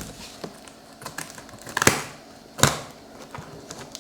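Scissors and hands working at a taped cardboard box: a few sharp clicks and knocks, the loudest about two seconds in and another under a second later.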